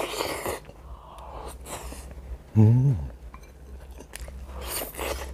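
Close-up chewing and mouth sounds of a man eating soft grilled hairtail with rice. A short hum of pleasure comes about two and a half seconds in.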